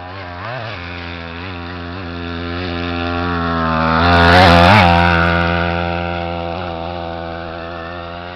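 Small two-stroke engine of a Chinese Go-Ped-style gas scooter running under throttle as the scooter rides past over rough ground. It gets louder to a peak about halfway through, with its pitch wobbling briefly a few times, then fades as it moves away.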